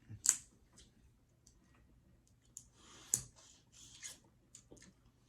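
Snow crab leg shells being cracked and cut open with scissors: two sharp cracks, about a third of a second in and about three seconds in, with smaller clicks and rustling of shell pieces between them.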